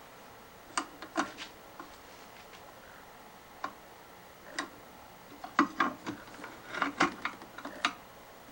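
Irregular light clicks and taps, a dozen or so in small clusters, mostly in the second half: small hard objects being handled.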